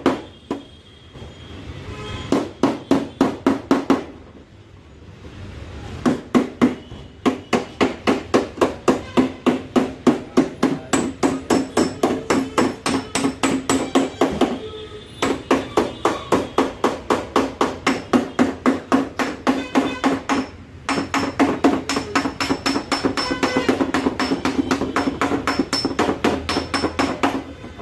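Body hammer beating dents out of a car's accident-damaged steel side panel: rapid sharp metal strikes, several a second, in runs broken by a few short pauses.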